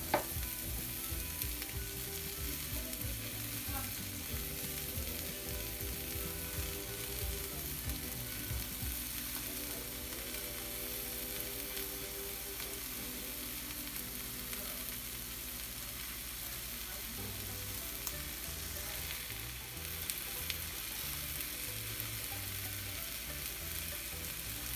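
Chicken burger patties and buns sizzling steadily on a hot stovetop griddle.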